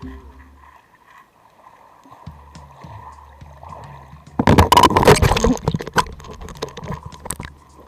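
Underwater sound picked up by an action camera submerged in a mountain stream: low muffled water noise with faint crackling, then a loud burst of splashing and bubbling about four and a half seconds in, lasting about a second before thinning to scattered clicks.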